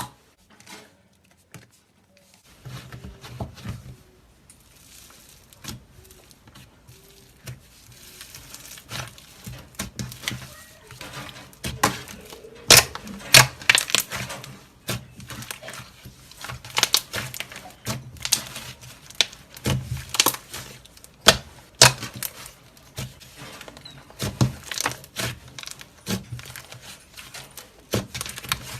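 Slime being squished, pressed and stretched by hand, making many irregular sticky clicks and pops as air pockets burst. They start after a short pause and grow denser and louder toward the middle.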